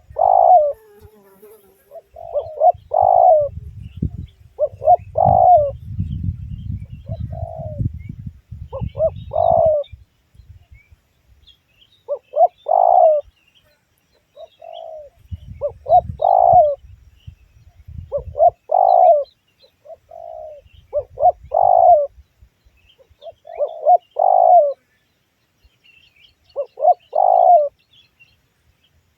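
Spotted doves cooing, repeating short coo phrases every two to three seconds. A low rumbling noise comes and goes underneath, and faint small-bird chirps sound higher up.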